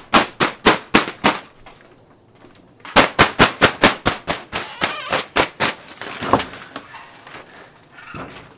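Rapid pounding on a door, about three sharp knocks a second in two runs, with a pause of about a second and a half between them and a few stray knocks near the end.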